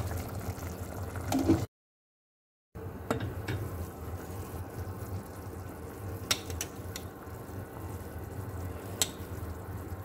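Onion, potato and carrot masala simmering and bubbling in a steel saucepan on a gas burner, over a low steady hum. A few light clicks as the steel lid is handled, and the sound drops out completely for about a second near two seconds in.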